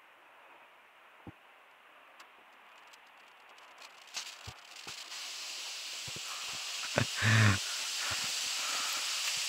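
Quiet footsteps on a sandy cave floor, then from about halfway a steady high hiss rises and holds. Near the end there is one short, loud, low thump.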